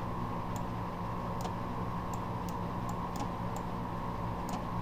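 Faint, unevenly spaced clicks of a computer mouse over a steady low electrical hum.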